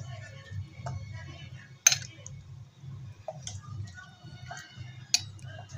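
Steel ladle clinking against the stainless-steel pressure cooker and bowl while chicken broth is ladled out: two sharp clinks, about two seconds in and about five seconds in, with lighter taps between.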